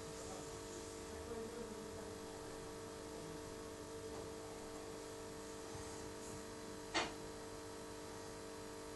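Steady electrical hum of running aquarium equipment, with one sharp click about seven seconds in.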